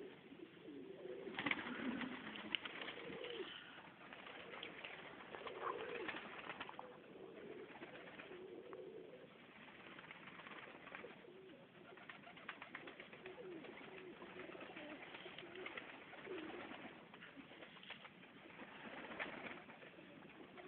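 Serbian highflyer pigeons cooing over and over, with scattered faint clicks.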